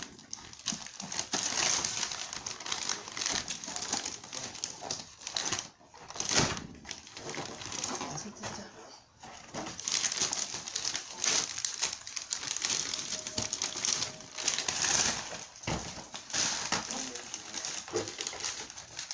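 Packaging crinkling and rustling as it is handled, in bursts with short pauses, with a couple of louder knocks.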